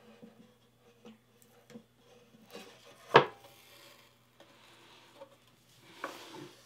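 Small handling sounds as a craft knife lifts the end of painter's tape off a wooden board, with light clicks and one sharp tap about three seconds in. Near the end the wooden board is scraped around on the wooden tabletop, ending in a soft knock.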